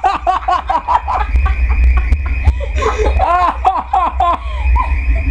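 A person laughing in repeated short bursts, in two runs, over a steady low rumble.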